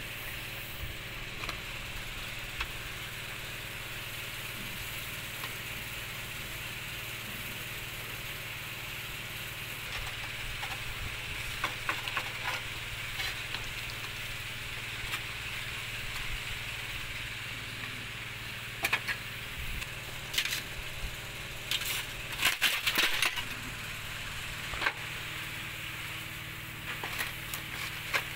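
Shards of broken window glass snapping and clinking as they are worked out of an excavator cab window frame with pliers. The glass is a non-original, non-tempered pane that breaks into sharp pieces. Sharp cracks and clinks come now and then in the second half, loudest in a cluster about three-quarters of the way through, over a steady background hum.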